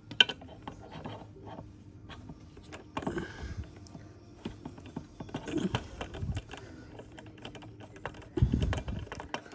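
Screwdriver and hand work on the plastic back of an all-in-one computer while its star-shaped Torx screws are removed: scattered small clicks and scrapes, with a few duller knocks near the end.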